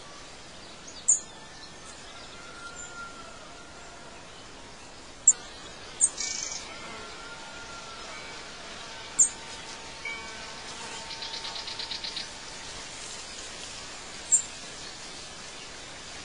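Outdoor nature ambience: birds giving short, high chirps every few seconds over a steady hiss, with a rapid trill about eleven seconds in.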